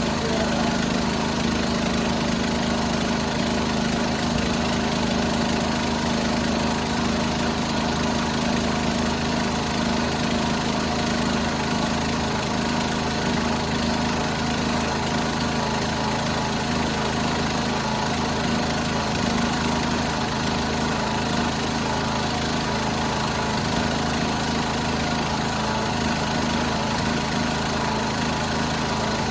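1976 John Deere 300 lawn tractor's engine idling steadily.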